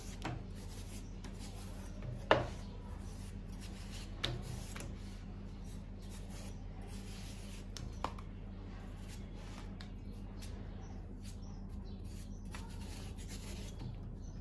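Kitchen knife shaving strips of white rind off a peeled watermelon: a quick run of short scraping strokes, with a few sharp knocks, the loudest about two seconds in.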